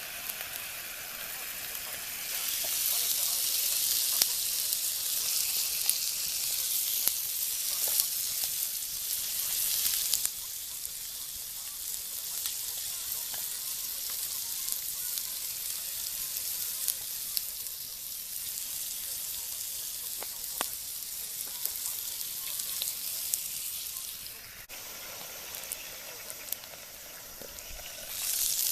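Meat sizzling in a frying pan over a campfire: a steady hiss with scattered pops. It swells about two seconds in, eases after about ten seconds, and dips briefly near the end.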